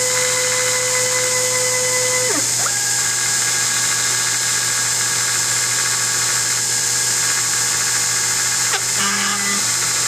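Sherline CNC mini lathe running, its spindle motor giving a steady hiss and the stepper motors driving the carriage giving a whine of steady tones. The whine glides to new pitches about two seconds in and again near the end as the axis moves change.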